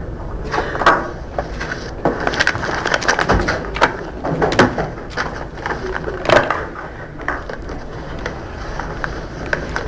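Irregular knocks, clicks and rustling of people moving about and gathering their things in a courtroom, with the sharpest knocks about a second in and again around four and a half and six seconds in.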